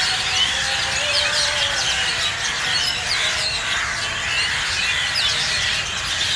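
A large flock of birds chattering and squeaking together in a dense, steady chorus as they gather to roost for the evening.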